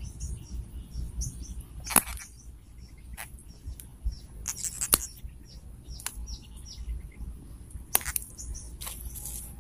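Small birds chirping in quick short calls, with several sharp clicks and knocks close by, the loudest about two and five seconds in, as a small hooked baung catfish and the fishing line are handled.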